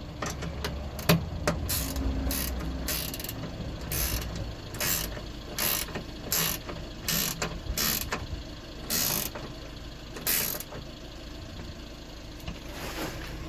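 Socket ratchet wrench being worked back and forth, a short burst of pawl clicks on each stroke, about a dozen strokes that stop about ten seconds in, as it tightens a bolt on a boot gas strut mounting.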